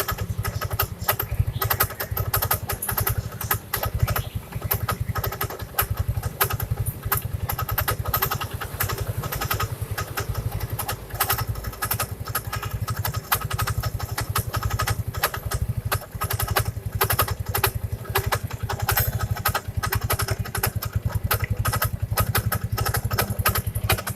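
Yamaha Mio scooter's single-cylinder four-stroke engine idling, with a rapid, irregular clatter of knocks throughout. This is the rough knocking from the CVT area that this first-generation Mio was brought in for.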